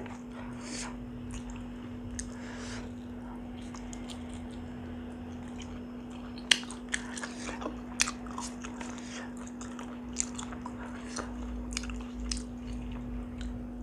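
A person chewing and biting grilled chicken close to a clip-on microphone. Soft chewing is followed, from about six seconds in, by scattered sharp crunchy clicks, over a steady low hum.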